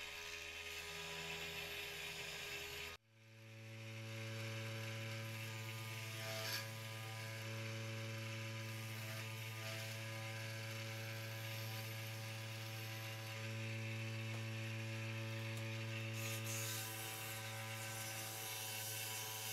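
Benchtop mini wood lathe's small motor running steadily while a hand gouge shaves a thin wooden dowel down to a taper, a hiss of cutting over the motor's hum. About three seconds in the sound cuts out, then builds back up over about a second to a steady hum.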